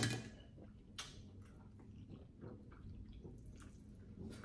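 A person eating pho at close range. There is a sharp tap, as of a utensil on the bowl, at the start and a lighter one about a second in, then faint, irregular chewing sounds.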